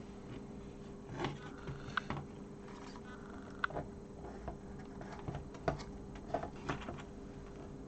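Light clicks and taps of a Sinclair QL's plastic case and keyboard parts being handled and fitted back together: about ten short, scattered strokes over a faint steady hum.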